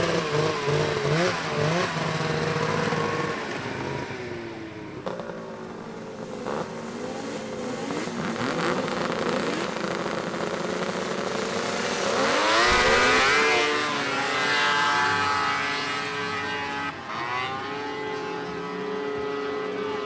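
Snowmobile engines revving up and down. Their pitch rises and falls again and again, with the loudest, highest-climbing rev about two-thirds of the way through.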